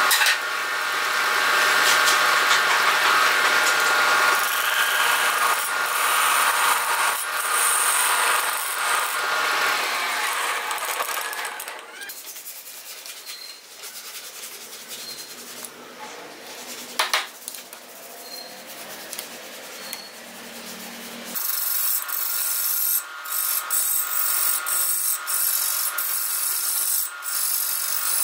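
Wood lathe running, with a turning tool rubbing and scraping on the spinning wood. About halfway the sound drops to a quieter stretch with one sharp click. Then it jumps back up to loud cutting in short broken strokes.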